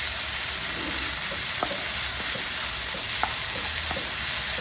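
Onion and tomato masala frying in a pan with a steady sizzle while it is stirred, with a few light clicks now and then.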